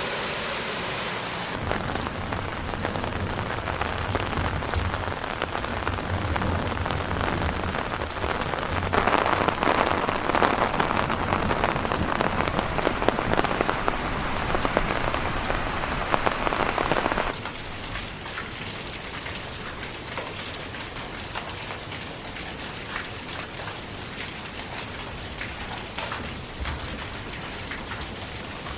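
Steady rain falling, with many separate drops striking surfaces. The sound changes abruptly about a second and a half in, again about nine seconds in, and once more about seventeen seconds in, where it turns quieter.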